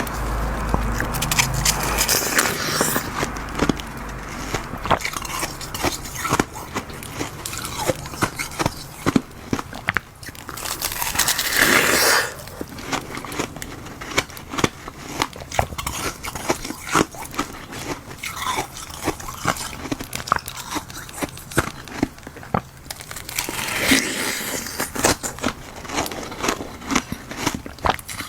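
Ice frozen from black goji berry water in a glove mould being bitten and chewed close to the microphone: many sharp, crackling crunches. Two longer, louder stretches of crunching come about ten seconds in and again near the end.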